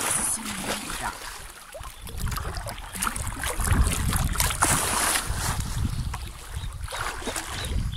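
Wind buffeting a phone's microphone, a low rumble that comes in gusts from about two seconds in, over river water splashing as a man wades through waist-deep water and plunges under.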